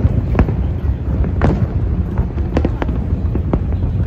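Aerial fireworks shells bursting in quick succession: a continuous run of bangs and crackle over a steady low rumble, with louder bursts about half a second, a second and a half, two and a half and three and a half seconds in.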